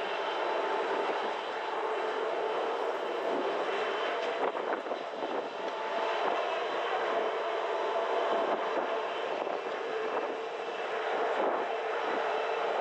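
Passenger train behind an HŽ 1141 electric locomotive rolling past: a steady rumble of coach wheels on rail with a faint hum and a few light clicks.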